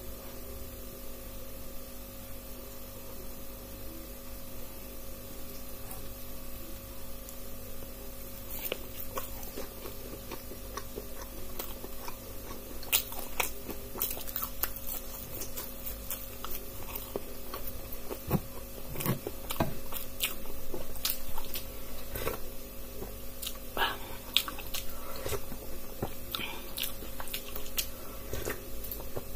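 Biting and chewing fried pakoras (batter-fried potato and chilli fritters) close to the microphone. Many short crackles and clicks start about eight seconds in, over a steady electrical hum.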